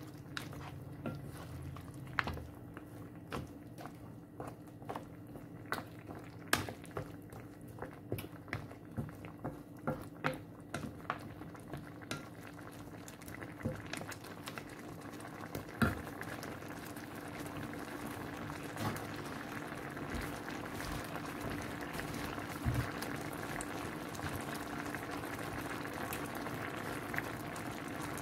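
Creamy coconut sauce with mussels bubbling at a simmer in a frying pan, with scattered sharp pops and clicks through the first half, then a denser, steady bubbling that grows a little louder over the second half.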